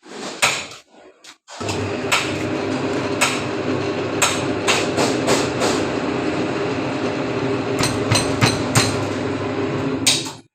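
Bending machine for square iron bars: its motor starts about a second and a half in and then runs with a steady hum. Sharp knocks sound over it at irregular intervals, with a quick cluster of them near the end.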